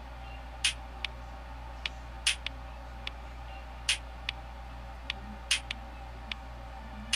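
Music played through Anker Soundcore Liberty Neo wireless earbuds held up to a microphone, coming through thin: mostly a repeating pattern of sharp percussive ticks, a strong one about every second and a half with lighter ones between, over a steady low hum.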